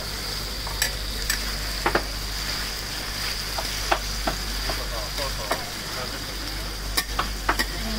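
Aubergine pieces sizzling as they are stir-fried in a large paella-style pan, with a steady hiss. The spatula clicks and scrapes sharply against the pan a few times, in clusters near the start and near the end.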